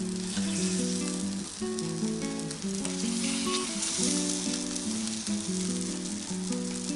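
Takoyaki batter sizzling steadily on a hot Iwatani diamond-coated takoyaki plate as the balls are turned with chopsticks. A melody of background music plays underneath.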